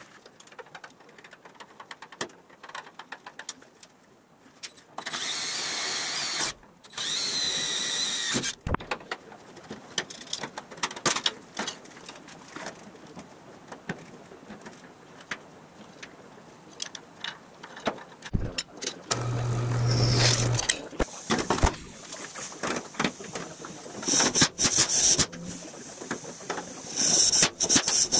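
A handheld drill boring through the aluminum body panel and the steel mounting brackets beneath, in runs of a second or two with a steady high whine, between clicks and knocks of parts being handled. A low steady hum sounds briefly about two-thirds of the way through.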